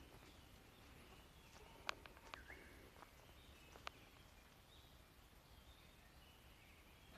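Near silence with faint bird calls, and three sharp clicks about two and four seconds in.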